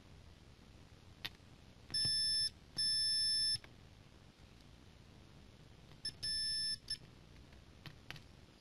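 Digital multimeter's continuity beeper sounding three times, a short beep, a longer one, then another short one, as the probe tips are touched to a removed 56 V Zener protection diode in both directions, with faint clicks of the probe tips between. Beeping with either polarity means the diode is shorted.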